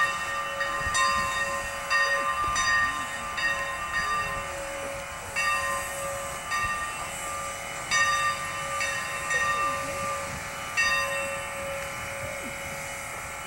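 Steam locomotive bell on Sierra Railway No. 28 ringing repeatedly at an uneven swinging pace over a steady hiss of steam, as the engine moves slowly.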